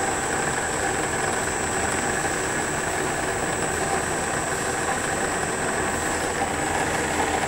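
Electric machinery running steadily: a low, even hum with a thin, high, unchanging whine over it.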